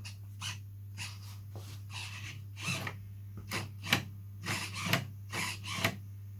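Short, irregular rubbing and scraping strokes as the Oratex covering on a balsa glider wing is worked by hand, coming more often and louder in the second half, over a steady low electrical hum.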